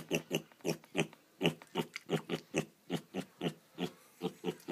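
Pet pig grunting right at the microphone: short, evenly repeated grunts, about three a second.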